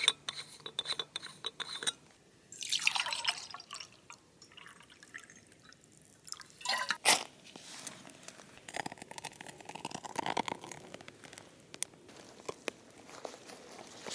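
Liquid being poured in a few short pours, with scattered clicks and knocks of small gear being handled.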